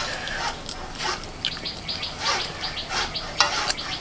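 Birds chirping with many short, high, repeated calls.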